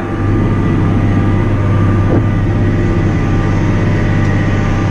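Massey Ferguson 6480 tractor's diesel engine running at a steady, unchanging drone, heard from inside the cab while working across a field.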